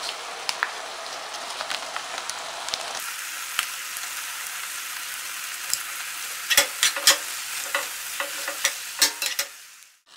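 Grated beetroot, carrot and onion frying in oil in a pan with tomato paste, a steady sizzle. From about six seconds in, a metal spoon stirs the mixture, clinking and scraping against the pan several times.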